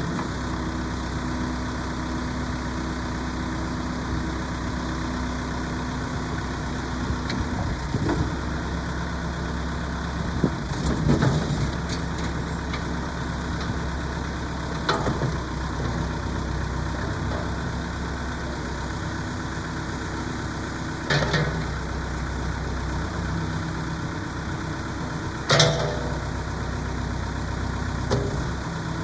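Case 580L Series 2 backhoe loader's diesel engine running steadily at idle, with several sharp clunks and knocks over its run, the loudest near the end.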